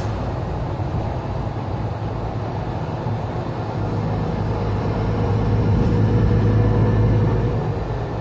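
Articulated Mercedes-Benz Citaro C2 G city bus heard from inside as it drives along: steady engine hum and road noise. It swells about halfway through and eases off near the end.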